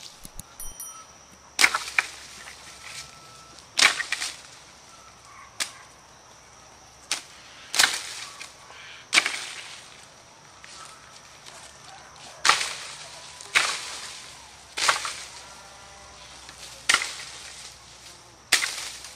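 A long wooden pole whacking the branches of a walnut tree to knock the nuts down: about eleven sharp cracks, each followed by a brief rustle of shaken leaves, coming irregularly every one to two seconds.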